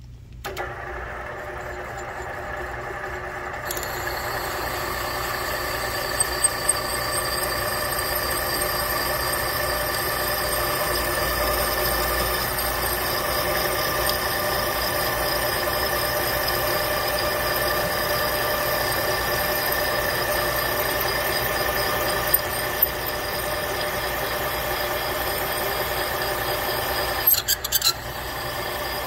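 Machine spindle turning a spiral reamer as it feeds down into a valve-guide bore in a Mopar 360 cast-iron cylinder head: a steady, high-pitched squealing whine of the cut, with a few short clicks along the way.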